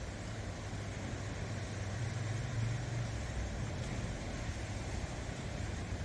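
Sea waves washing over and around coastal rocks, with a steady low engine-like rumble underneath that swells about two seconds in.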